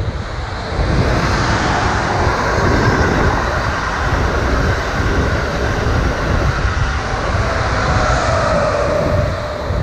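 Amtrak Acela Express trainset passing at speed, a steady rush of wheel and air noise as the power cars and coaches go by. A humming tone comes in near the end.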